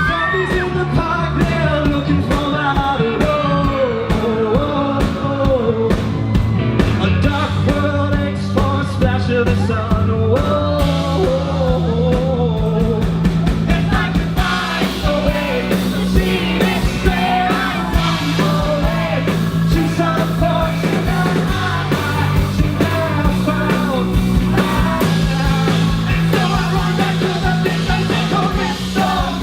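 Live rock band with a male lead singer: singing over bass guitar and drums. The band grows fuller about halfway through.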